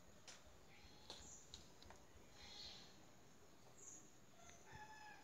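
Near silence: faint room tone with a few faint distant bird chirps, a short run of them near the end.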